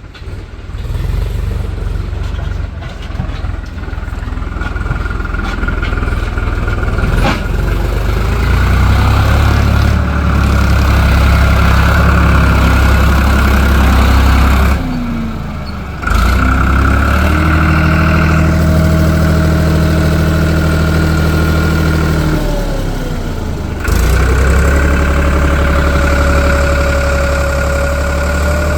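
Heavy diesel engine running hard under load, its revs dipping and climbing back twice, about halfway through and again toward the end.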